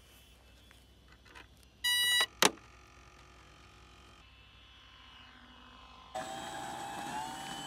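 A short, loud electronic beep from the RC plane's electronics at power-up about two seconds in, then a sharp click. From about six seconds in, the electric plane's brushless motor and propeller run steadily, rising slightly in pitch a second later.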